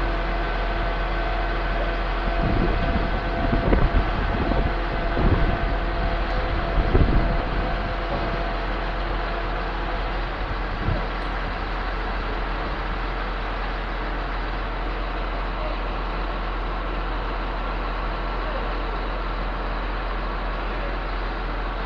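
Concrete pump running: a steady engine and hydraulic drone, with a run of heavy knocks a few seconds in and one more about eleven seconds in.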